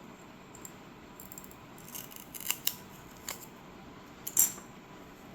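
Sharp clicks and snaps of breakaway tabs being cracked off a guitar pedal kit's scored circuit board panel: a few quick clicks, then a louder short crackle near the end.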